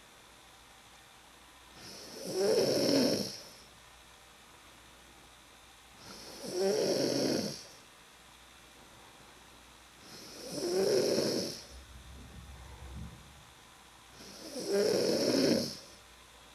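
A person snoring loudly: four long snores about four seconds apart, with a softer breath between the last two.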